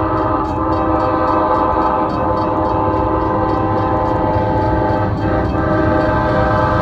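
Locomotive air horn held in one long steady chord as a train passes, over the low rumble of the train.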